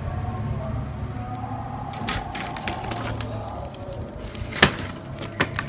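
Paint brushes being handled in their clear plastic packaging: scattered sharp clicks and crinkles, a few about two seconds in and a louder click later, with several more near the end, over a steady low hum.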